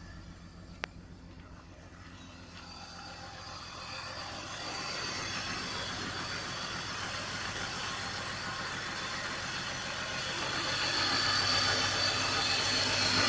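Car engine idling just after a restart, with a single sharp click about a second in. Over it a hiss of air being sucked in grows steadily louder: a vacuum leak, which the owner puts down to an intake hose that has not clipped back on properly.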